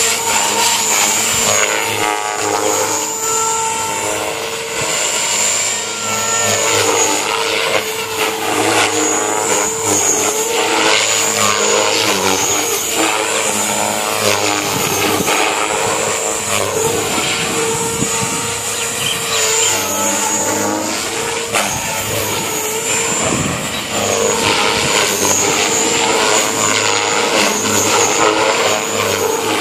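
JR Forza 450 radio-controlled helicopter in flight: a steady motor and rotor whine whose pitch rises and falls again and again as it hovers and manoeuvres.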